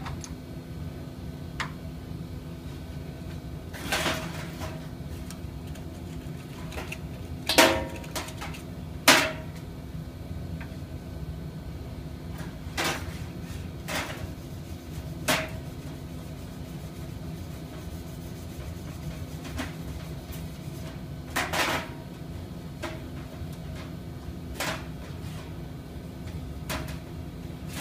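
Irregular sharp metal knocks and clanks, about a dozen, as a hand tool is worked against a metal part on a steel shop cart; the two loudest come about a third of the way in. A steady machinery hum runs under them.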